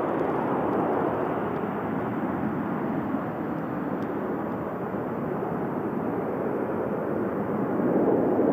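Jet engines of a departing Airbus A320 airliner, a steady rush of noise that swells slightly near the end.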